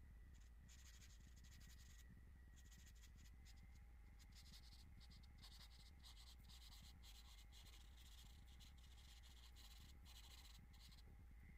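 Faint scratching of charcoal across drawing paper, in stroke after stroke with short pauses between, over a low steady hum.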